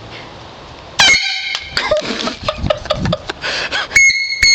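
Air horn run off an air compressor at 100 psi: a short, sharp blast about a second in, then uneven sputtering, and a thin high whistle with sharp clicks starting near the end. The horn fails to sound properly.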